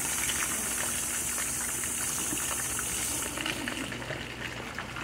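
Battered chicken thighs deep-frying in a pot of hot oil: a steady bubbling sizzle with fine crackling, softening a little about three seconds in.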